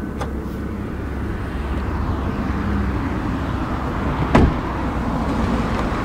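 Steady low outdoor rumble with a faint click just after the start and one sharp thump about four seconds in.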